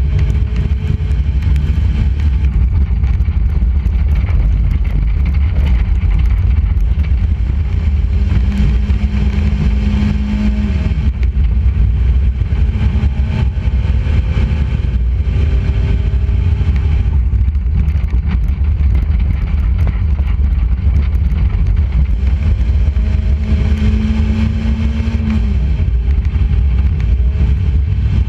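Enduro race car's engine running hard under a heavy low rumble, with a high engine note held steady and then dropping twice, about 10 and 25 seconds in, as the throttle eases for the turns.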